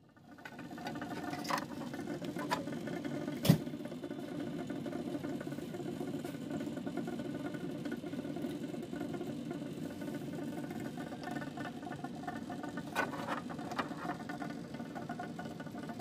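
Steady machinery hum with a few sharp clicks, the loudest about three and a half seconds in.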